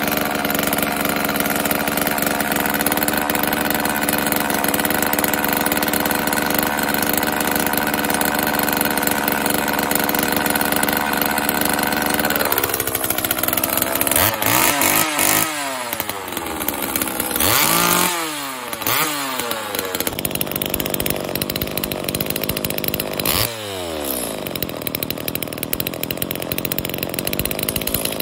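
Homelite XL two-stroke chainsaw engine running without its bar and chain on a test run after a carburetor rebuild. It runs steadily at first, then from about halfway it is revved up and let back down three times before settling to a steady run again.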